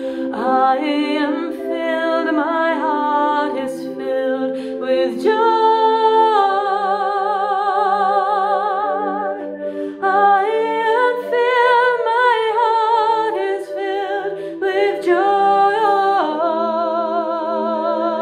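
A woman singing long, sustained notes with a wide vibrato, gliding from one held pitch to the next, over steady held accompanying tones lower down.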